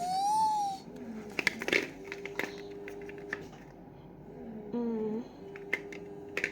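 A child's voice rising in pitch, ending about a second in, then scattered clicks and taps of a small blind-box package being handled and opened, with a short vocal sound partway through over a faint steady hum.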